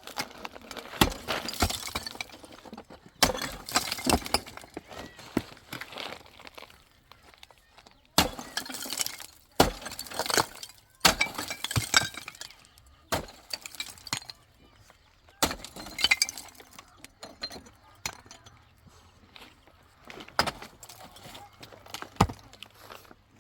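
Irregular sharp knocks and clinks of hard objects striking, in clusters of several hits separated by short pauses.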